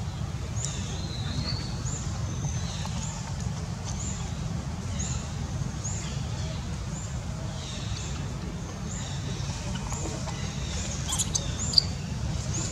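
Short high-pitched chirps repeating irregularly, about one or two a second, over a steady low rumble, with a sharp click near the end.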